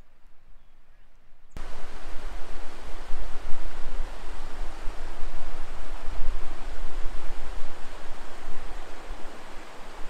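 Rushing water of a monsoon-fed desert canyon stream, mixed with wind buffeting the microphone, starting abruptly about one and a half seconds in and running on as a steady rush with an uneven low rumble.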